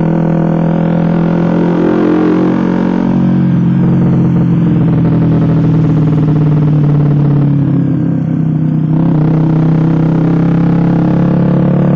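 Suzuki GSX-R150 single-cylinder engine running through an aftermarket SC Project-style racing exhaust while being ridden. The exhaust note holds mostly steady, with small rises and dips in pitch.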